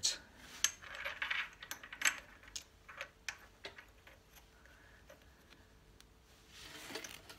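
Irregular light metallic clicks and clinks of a motorcycle kickstart return spring and its steel anchor plate being handled and worked into place against the kickstart shaft and the aluminium engine case.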